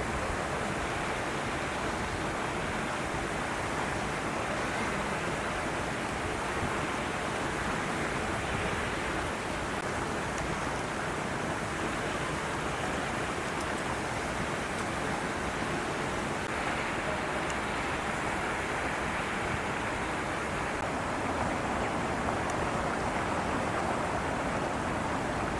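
Strong wind blowing, a steady rushing noise with no distinct events.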